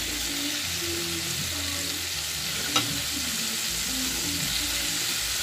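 Flour-coated chicken pieces deep-frying in hot oil, a steady sizzle with one light click a little under three seconds in.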